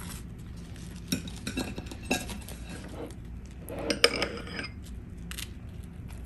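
Metal utensils clinking against tableware: a few light clinks of metal tongs against a glass jar, then about four seconds in a cluster of scrapes and a sharp clink as a metal spoon scoops mayonnaise from a small ceramic bowl.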